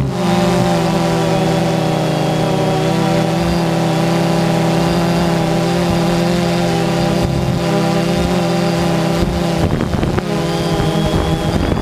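Quadcopter drone's motors and propellers running with a steady multi-tone buzz, the pitches wavering about ten seconds in as the motors change speed.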